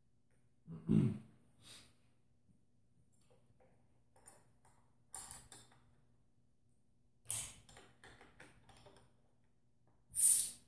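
Small clicks and handling knocks from the nitrogen charging chuck and new Schrader valve on a Bilstein shock's remote reservoir, just charged to 250 psi, as they are worked by hand. A heavier knock comes about a second in, and several short, sharp hisses follow, the loudest near the end.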